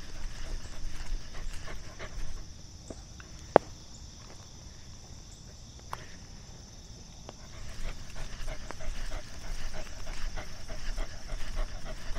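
A dog moving about, with close footfalls that ease for a few seconds in the middle, and one sharp click about three and a half seconds in; a steady high-pitched buzz underneath.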